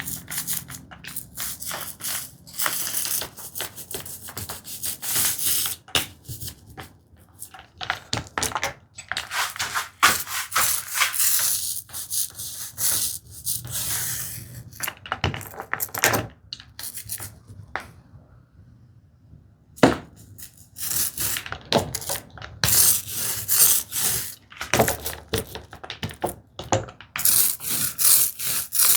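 Small paint roller spreading white PVA glue across the backs of wooden tambour slats, in repeated irregular rubbing strokes, with a brief pause about two-thirds of the way through.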